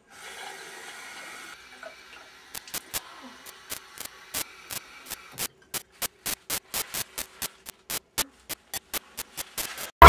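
A tap runs briefly with a soft hiss. Then comes a run of sharp clicks that come faster and faster and stop abruptly.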